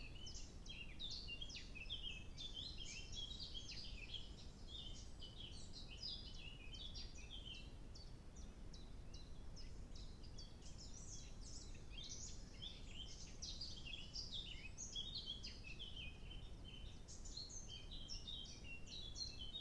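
Several wild birds singing at once in a dense, continuous run of short high chirps and trills, a dawn chorus, over a faint steady low hiss.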